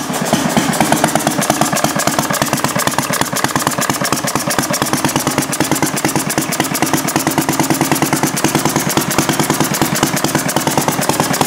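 Briggs & Stratton single-cylinder engine with a clear acrylic head, running fast with a rapid, even train of firing pops.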